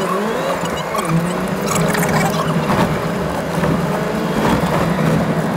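Toyota Land Cruiser driving over a rough gravel and volcanic-sand track: the engine note rises and falls a little under the noise of tyres on loose stones, with many scattered clicks and knocks from stones and cabin rattles.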